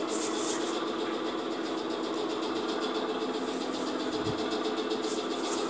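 Steady machine hum with a few held low tones, like a motor running.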